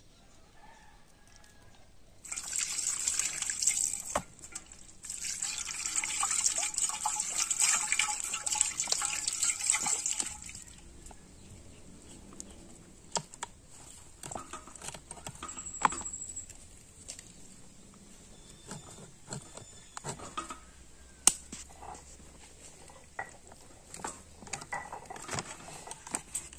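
Water pouring and splashing in two stretches, starting about two seconds in and stopping about ten seconds in. After that come scattered light clicks and knocks of a plucked chicken being cut on a boti blade.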